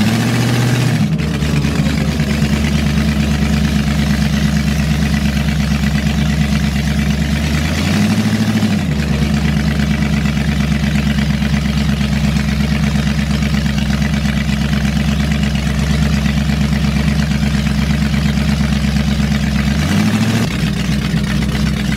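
Big-block V8 of a Ford Pinto drag car, running through open zoomie headers and twin four-barrel carburettors, heard from the cabin at low road speed. The engine note rises briefly three times under throttle: at the start, about eight seconds in, and about twenty seconds in.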